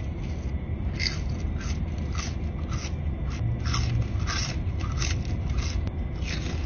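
A person chewing crunchy food close to the microphone: irregular crunches and crackles, one or two a second, over a low steady rumble.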